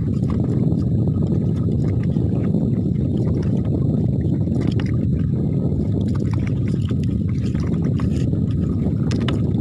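Steady low rumble of a fishing boat under way, with faint ticks over it.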